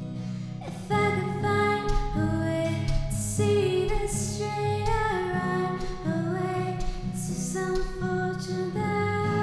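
A woman singing a slow song to acoustic guitar.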